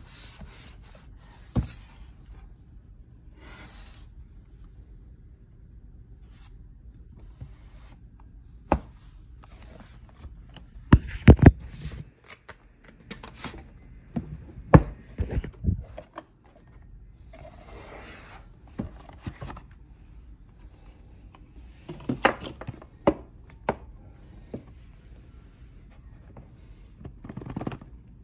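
Cardboard packaging being handled: the box and its sleeve rubbing and scraping as they are slid and opened, with scattered knocks and taps, the loudest a quick cluster of knocks in the middle.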